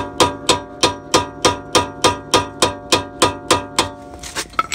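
Hammer blows on the end of a screwdriver seated in a Phillips brake-rotor retaining screw, about three ringing metal strikes a second, stopping near the end. The blows are meant to jar the stuck screw loose.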